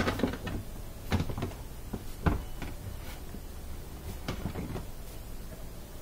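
Plastic knocks and clicks of a dishwasher's filter assembly being handled and pressed into its sump housing to lock it in: a handful of sharp knocks, the loudest a little over two seconds in.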